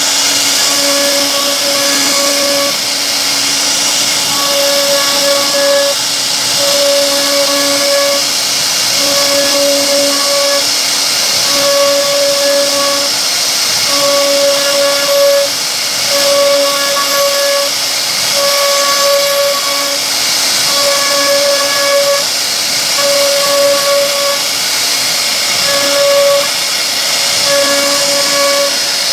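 CNC router spindle cutting wood: a steady loud high hiss, with a humming tone that comes and goes every second or two as the cutter works along the carving.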